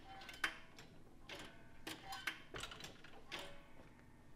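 A string of faint, irregular clicks and ticks, roughly two a second.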